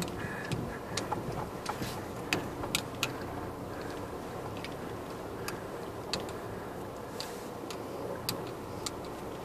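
Great Wall Voleex C10 hatchback driving slowly over a rough dirt track, heard from inside the cabin: a steady low rumble with irregular sharp clicks and knocks, most of them in the first three seconds.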